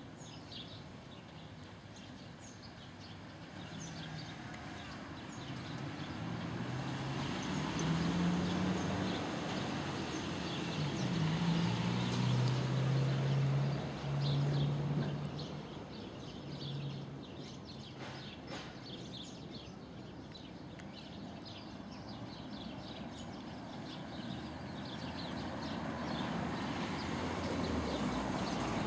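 Street ambience: a steady wash of traffic noise, with a vehicle engine running louder through the middle and birds chirping.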